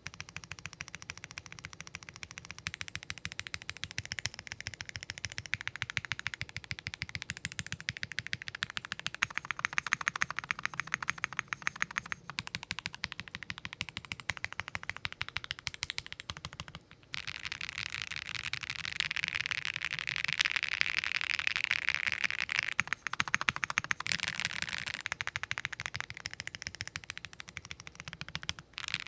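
Typing sound test on a keyboard fitted with Akko Starlit switches, pre-lubed linear switches, in a top-mount Tofu60 case with case foam: a fast, continuous stream of keystrokes. It starts suddenly, breaks off briefly about 17 seconds in, then resumes with a brighter sound.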